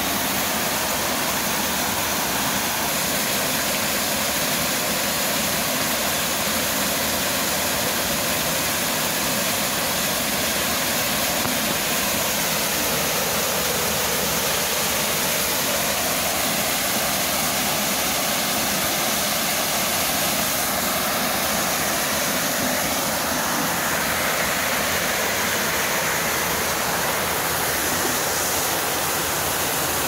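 Small waterfall pouring into a pool: a steady, even rush of falling water.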